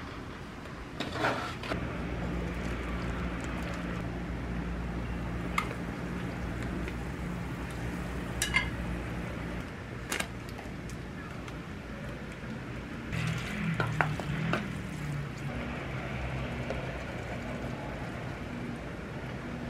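Cooking at a small electric hot pot: utensils and the glass lid clink and knock against the pot over a steady low hum, with a short run of clattering about two-thirds of the way through.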